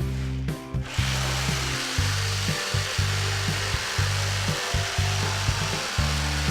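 A power tool working wood, a steady hissing that comes in about a second in, under background music with a steady beat and a heavy bass line.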